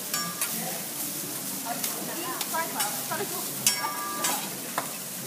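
Food sizzling on a teppanyaki steel griddle while a metal spatula and fork scrape and tap against the hotplate. A few sharp metal clanks ring briefly, the loudest about three and a half seconds in.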